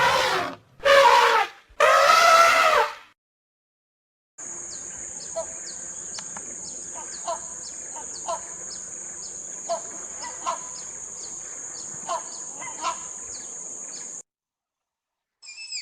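Three loud, drawn-out animal calls in quick succession, then after a brief pause a steady high-pitched drone with short falling bird chirps repeating about once or twice a second, which stops abruptly.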